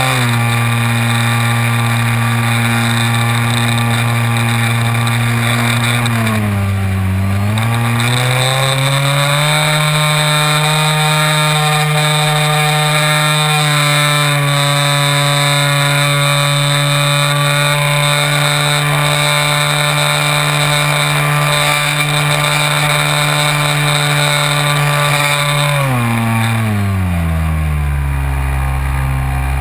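Propeller drone of a Multiplex Xeno RC airplane's electric motor, heard through a camera mounted on the airframe in flight. The steady pitched buzz dips and comes back up about seven seconds in, then drops to a lower pitch near the end as the throttle eases.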